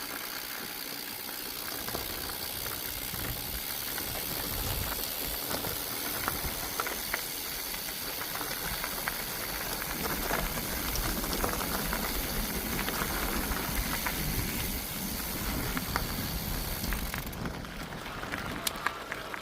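Mountain bike in motion: a steady rushing hiss of wind and tyres, with scattered clicks and rattles from the bike on a rough trail. The hiss drops away about 17 seconds in.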